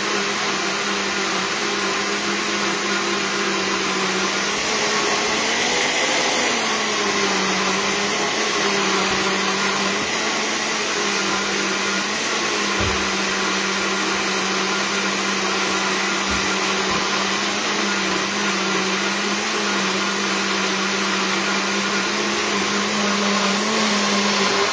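Bullet-style personal blender running steadily at full speed, emulsifying chickpea water, mustard, vinegar and oil into a thick mayonnaise. Its pitch wavers slightly a few seconds in, and the motor cuts off suddenly at the end.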